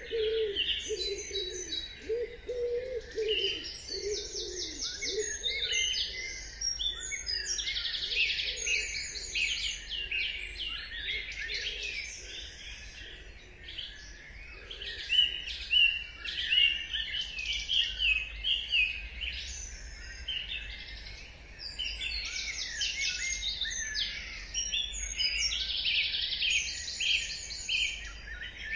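Dawn chorus: many songbirds singing at once in dense, overlapping trills, whistles and chirps. A low cooing underneath fades out about halfway through.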